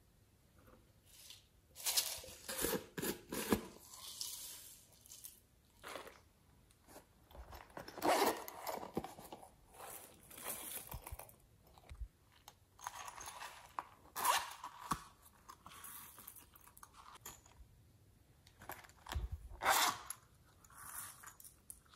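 Irregular bursts of crinkly, crunchy handling noise as a small zippered pouch is handled and glitter and sequins are tipped out of it onto slime.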